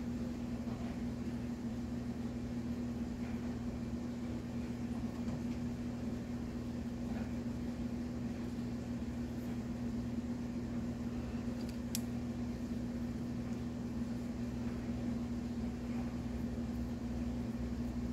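Steady machine hum, a constant low tone with a lower drone beneath it, with a single faint click a little past the middle.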